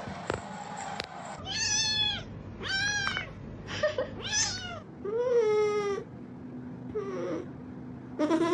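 A domestic cat meowing five or six times in a row, short calls with gaps between them and one longer, drawn-out meow about halfway through. The first second is a noisy hiss with a few clicks before the meows begin.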